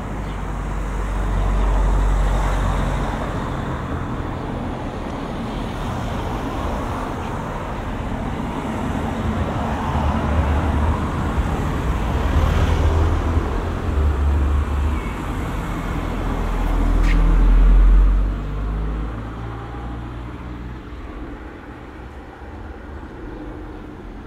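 Road traffic in a village street: cars passing by, one swelling past a couple of seconds in and a louder one about three-quarters of the way through, its rumble falling away quickly after it passes.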